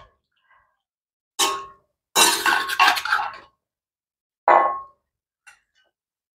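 Steel skimmer scraping and clinking against a black iron wok while cooked vegetables are scooped out: a short clink about a second and a half in, a longer scrape after it, then another short clink.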